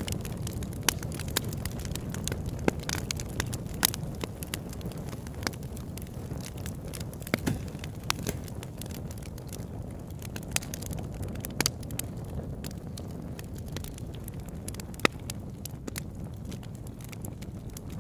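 Campfire burning: a steady low rumble of flame with scattered sharp crackles and pops throughout, a few of them louder than the rest.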